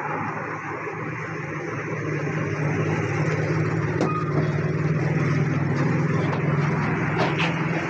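Refrigeration compressor running with a steady low electric hum that grows louder about two seconds in, while more oil is drawn into it. A few faint clicks near the middle and near the end.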